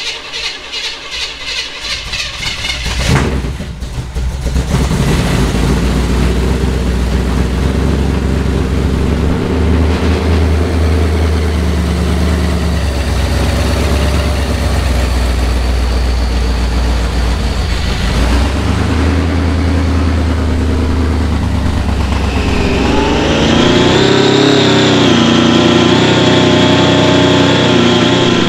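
Starter cranking the freshly installed supercharged 454 big-block V8, which fires about three seconds in and keeps running. Near the end the engine note changes to a higher, wavering sound.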